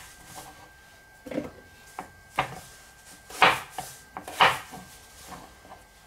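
Chef's knife chopping a courgette into chips on a wooden chopping board: irregular knocks of the blade through the courgette onto the wood, the loudest two about three and a half and four and a half seconds in.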